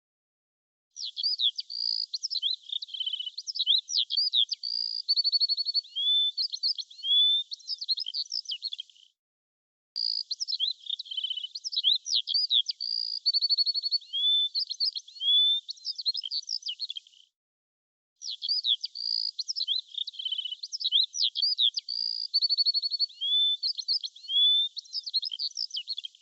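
Songbird singing a fast, varied run of chirps, whistles and trills. The recording cuts off abruptly about nine seconds in and again about seventeen seconds in, restarting each time with the same sequence of notes.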